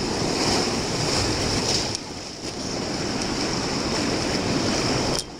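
Whitewater of a flooded rapid rushing and splashing around a paddle raft: a dense, steady wash of water noise that dips briefly about two seconds in and drops off suddenly near the end.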